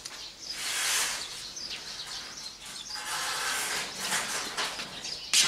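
Metal spoon scraping soft, ripe mango flesh off the skin on a plastic cutting board, in a few long scrapes, with a sharp knock near the end. Birds chirp faintly in the background.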